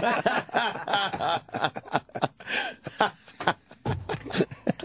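Men laughing and snickering in short, broken fits.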